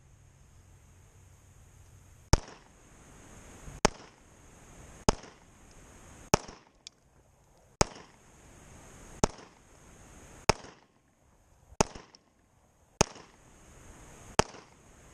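Glock 9mm pistol firing ten single shots in slow, steady succession, about one every 1.3 seconds.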